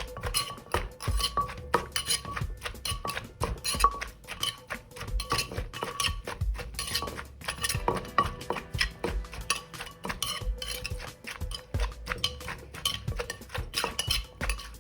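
Pestle and spoon knocking and clinking in a mortar as green papaya salad is pounded and tossed. The knocks are rapid and irregular, several a second.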